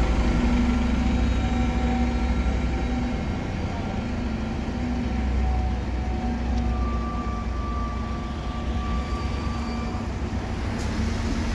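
City bus engine running as the bus pulls away from the stop and drives off down the street, its steady hum slowly fading with distance.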